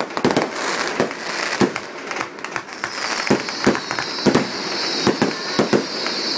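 Aerial fireworks bursting overhead in a rapid, irregular series of about a dozen bangs, with crackling between them. A high hiss sets in about halfway through and carries on over the bangs.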